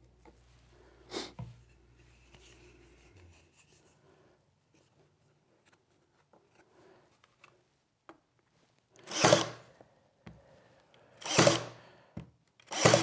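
Ryobi cordless battery nailer firing three times, pin-nailing a glued wooden tray together: three loud, sharp shots, the first about two seconds before the second and the last about a second and a half after that. Before them, only light handling sounds of hands setting up the workpiece.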